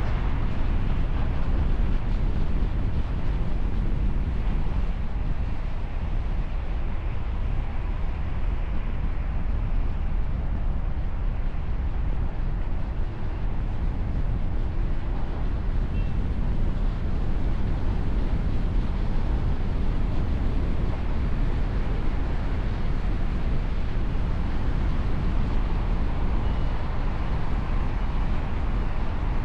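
Steady street traffic noise: a continuous low rumble with no clear horn blasts.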